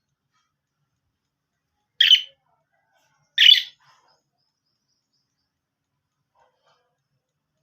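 Pet parrot giving two short, loud calls about a second and a half apart.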